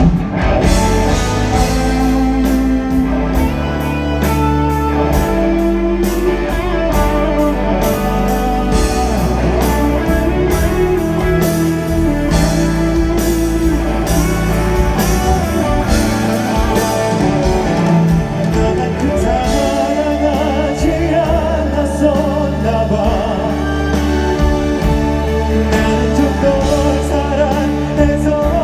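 Live band music with singing: a pop-rock ballad with guitar, drums and keyboard, and a wavering vocal line over it.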